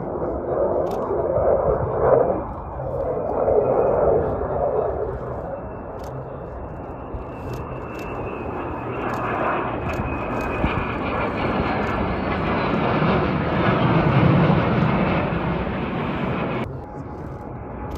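Military fighter jets flying low past the mountainside, their engines sending out a rushing noise that swells and fades as they pass, with a faint whine that slowly glides in pitch partway through.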